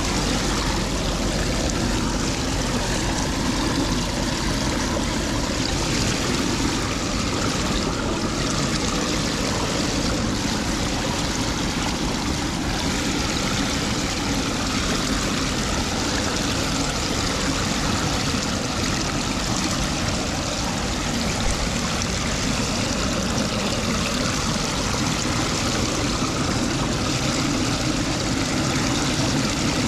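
Floodwater pouring down through a steel grate storm drain: a steady rush of running water.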